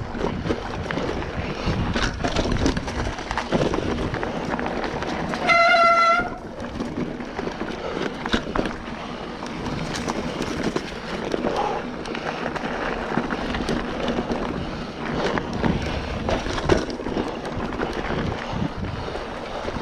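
Mountain bike rolling and rattling over a dirt trail, with wind buffeting the action camera. About five and a half seconds in, the bike's brake gives one brief, steady high squeal.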